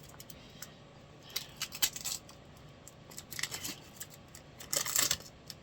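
A few light clinks, taps and rustles: a hot glass shot glass in shrink wrap being handled with gloves.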